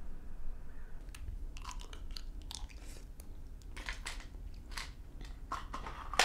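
A person biting her fingernails: a run of small, irregular clicks and crunches at the mouth, starting about a second in.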